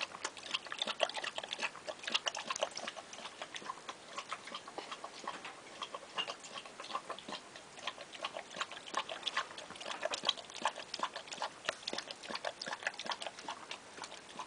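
A dog lapping milk from a bowl: a fast run of short, wet clicks from its tongue against the liquid.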